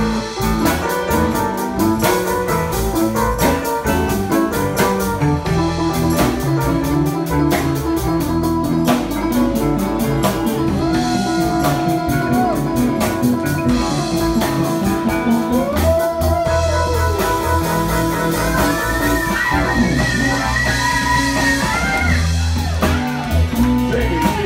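Live band playing an instrumental blues groove: electric guitar over a drum kit, with long held, bending lead notes in the second half.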